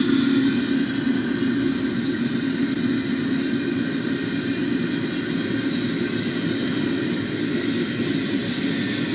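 Double-stack intermodal freight cars rolling past at speed, a steady rumble of steel wheels on rail, with a few sharp clicks about two-thirds of the way through.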